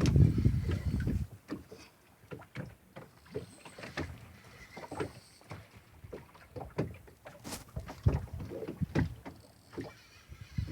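Small fishing boat: irregular knocks and clicks of hull, gear and water, after a low rumble that stops about a second in.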